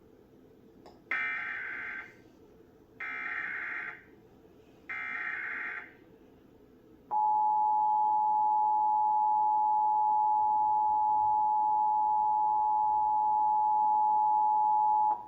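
Emergency Alert System data bursts: three harsh, buzzy bursts of about a second each, roughly a second apart (the SAME header sent three times). About seven seconds in, the EAS two-tone attention signal starts and holds steady for about eight seconds before cutting off, marking a Required Monthly Test.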